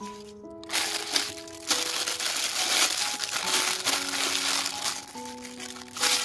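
Thin clear plastic bag crinkling and rustling loudly as a toy tractor is handled and slid out of it, starting about a second in and easing off before a short last burst near the end.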